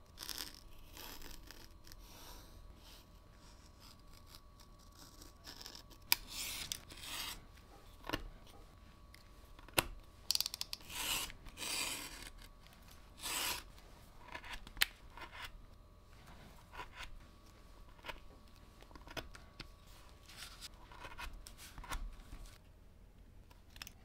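Leatherworking at a cutting mat: a scratch awl scribing lines along a paper pattern on vegetable-tanned leather, and a knife slicing the leather along a steel ruler, heard as scattered short scraping strokes. A few sharp clicks come in between.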